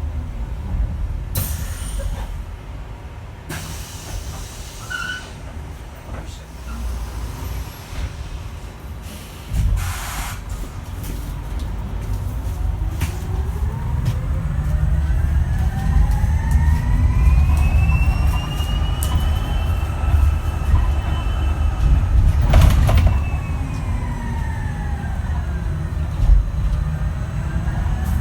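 Switch Metrodecker EV electric bus's ZF AxTrax AVE electric drive whining over low road rumble, the whine climbing in pitch as the bus accelerates and falling as it slows. It falls away at the start, then after a short hiss about ten seconds in it rises steadily for several seconds, peaks, drops back and starts rising again near the end.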